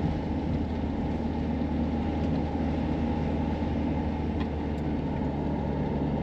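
Renault Master camper van's engine running steadily with tyre and road noise, heard inside the cab while driving: an even, unbroken low hum.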